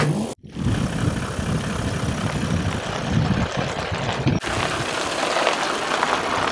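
Toyota LandCruiser's engine idling with a rough low rumble. The sound drops out briefly about half a second in.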